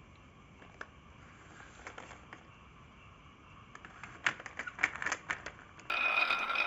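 Marbles clicking against a wooden marble run: a few scattered clicks, then a quick flurry of them. Near the end a louder, steady sound with a ringing tone cuts in suddenly.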